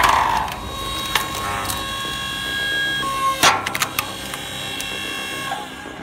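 Gardenmaster 5-ton electric log splitter forcing a log onto its wedge: the wood cracks loudly at the start and again about three and a half seconds in as it splits apart, with smaller snaps and creaks between.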